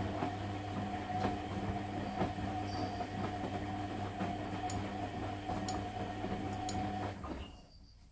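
Bendix front-loading washing machine turning its drum of wet laundry during the wash: the motor hums steadily under irregular knocks and a few sharp clicks, then the drum stops about seven seconds in.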